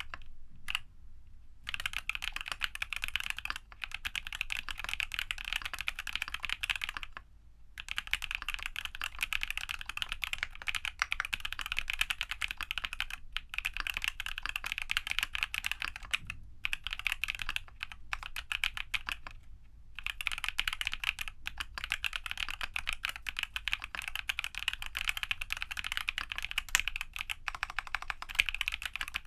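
Fast, continuous typing on a custom mechanical keyboard, a Geon F1-8K fitted with lubed TTC Holy Panda tactile switches, brass reinforcement, sound-dampening foam and PBT dye-sub keycaps. The keystrokes come in runs of a few seconds, broken by brief pauses.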